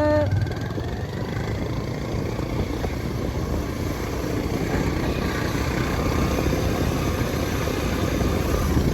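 Motorcycle running steadily under way as it is ridden over a rough, rocky off-road track.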